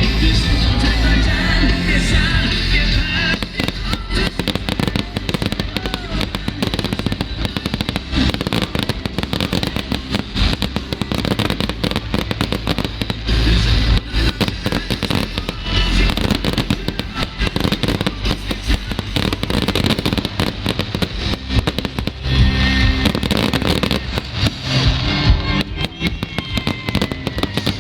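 Fireworks display going off in a rapid, dense barrage of bangs and crackles, with music playing underneath.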